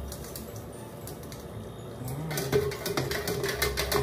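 A long spoon stirring ice and tea in a tall pitcher: a fast, even run of clinks that starts about two seconds in.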